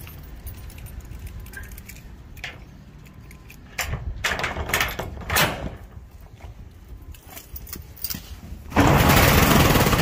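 A few clicks and short rattles, then a corrugated metal roll-up door rattling loudly as it is rolled up near the end.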